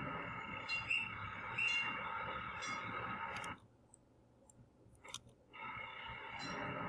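Outdoor ambience track playing back: a steady insect-like drone with a bird chirping about once a second. It cuts out about three and a half seconds in, a single mouse click follows, and it starts again about two seconds later.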